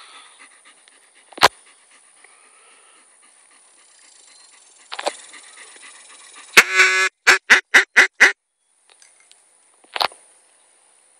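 Duck call blown in a hunting-retriever training field: one long quack and then five quick quacks. A single sharp shot follows about two seconds later, marking the thrown bird. There is also a single click about a second and a half in.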